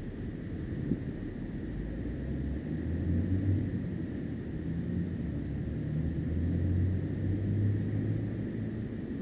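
Low engine rumble of a vehicle, swelling about three seconds in and again around seven seconds, with a faint steady high whine behind it.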